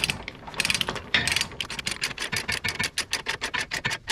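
A ratchet clicking in quick, even strokes, about six or seven clicks a second, as the winch is tightened down on the trailer.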